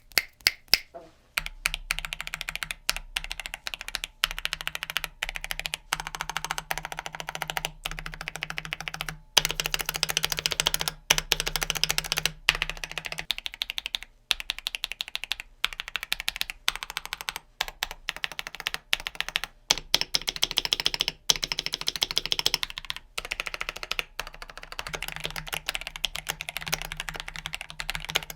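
Fast typing on a mechanical keyboard fitted with Akko switches: a dense run of key clacks in bursts, with brief pauses between them.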